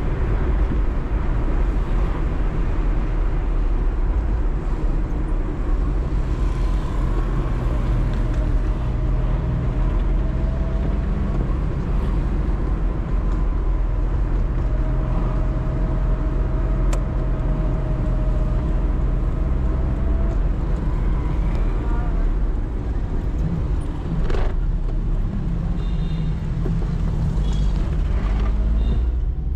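Maruti 800's 796 cc three-cylinder petrol engine running steadily under way, with a continuous low rumble of engine and road noise.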